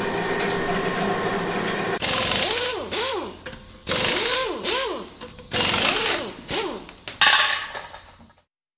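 Small DC gearmotors of a two-link robot arm driving its joints back and forth: repeated bursts of gear noise with a whine that rises and falls in pitch as each motor speeds up and slows down, roughly once or twice a second. The bursts follow a steady hum in the first two seconds and fade out near the end.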